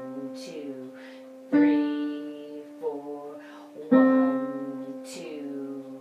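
Piano playing the slow, sustained notes of a choral soprano 1 part; each note is struck and fades, with new notes about a second and a half in and again about four seconds in. A faint voice sings along.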